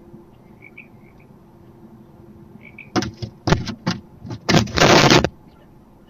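Barn owl leaving its wooden nest box: about three seconds in, a quick run of loud scuffling knocks, then a harsh, hissing screech lasting almost a second.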